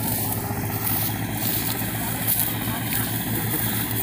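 Diesel tractor engine running steadily under load, hauling a loaded trailer.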